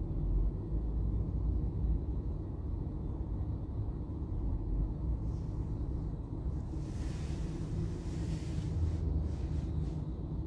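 Low, steady rumble inside a stationary car waiting at a crossing, with a hiss that swells for about two seconds around seven seconds in.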